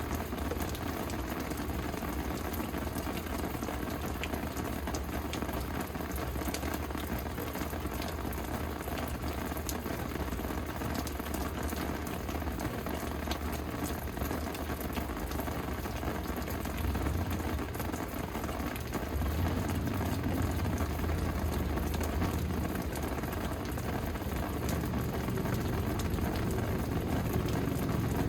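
Steady rain falling, with scattered ticks of individual drops, over a low rumble that swells twice in the second half.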